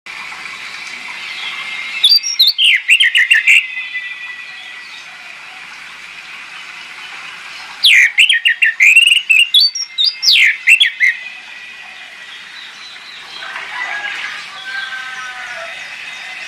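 Orange-headed thrush singing: two loud bursts of rapid, sweeping whistled phrases, about two seconds in and again from about eight to eleven seconds, over faint steady twittering. A softer, lower warbling phrase comes near the end.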